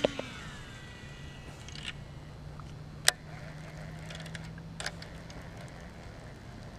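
Baitcasting reel on a cast: the spool whirs as the line pays out, its pitch falling as the spool slows over about two seconds. A sharp click about three seconds in and a lighter one near five seconds come as the reel is engaged and cranked to retrieve the lure.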